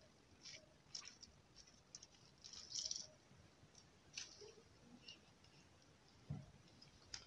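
Faint, scattered rustling and squishing as a green lemon half is squeezed by hand over a cloth-lined plastic strainer, with a single soft knock a little after six seconds.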